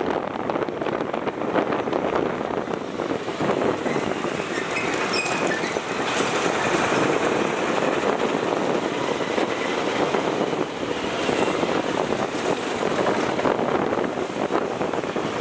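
Steady riding noise from a moving motor scooter in city traffic: the scooter's engine, tyres on the road and wind on the microphone, with the traffic around it.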